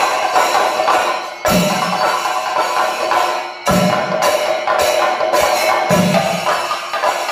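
Thayampaka drumming: several chenda drums struck with sticks in a fast, dense, continuous rhythm, with ilathalam hand cymbals ringing along. Three heavy deep strokes land about two seconds apart.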